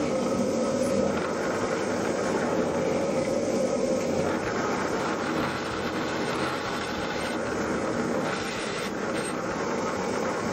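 Bench drill press and the vacuum on its dust hose running while holes are drilled in a thin metal channel: a steady machine noise with no breaks.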